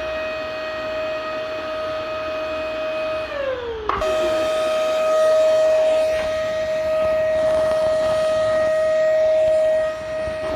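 Vacuum cleaner motor running with a steady high whine. About three seconds in its pitch drops as it winds down, then a click and the whine is straight back at full pitch.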